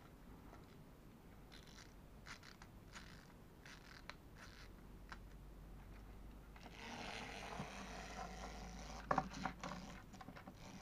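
Clockwork wind-up motor of a plastic model car. A few faint clicks as it is wound, then from about seven seconds in a steady whirr of the running gears, with a couple of knocks a little after nine seconds as the car is set down on the table.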